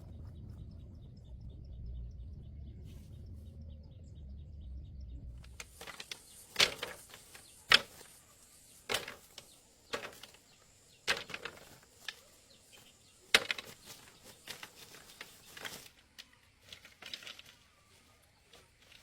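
Low rumble with a faint, fast ticking for about the first five seconds, then a series of sharp knocks, roughly one a second, until near the end.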